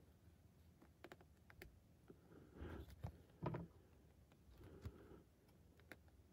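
Faint sounds of hand cross-stitching on 18-count Aida fabric: a needle poking through the cloth and floss being drawn through. A few small clicks come about a second in, then several soft pulling rustles, the loudest about halfway through.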